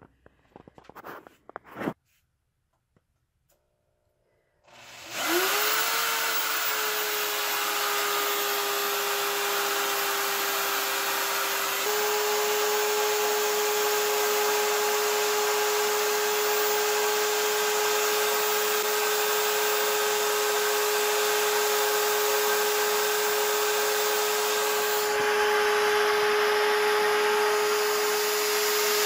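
A few handling clicks, then an electric drill clamped in a bench vise starts about five seconds in, rising to a steady whine as it spins a coin ring on a mandrel; its pitch steps up slightly about twelve seconds in. Sandpaper is held against the spinning ring, sanding it smooth.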